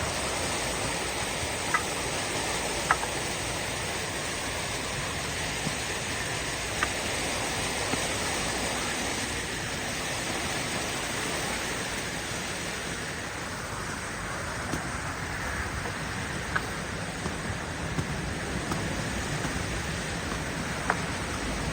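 Steady rush of a waterfall and creek water, with a few faint sharp clicks scattered through it.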